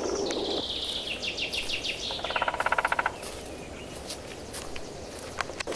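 Songbird singing a high trill of quick repeated notes that slips slightly lower. About two seconds in comes a short, loud woodpecker drum roll of rapid even strikes lasting under a second.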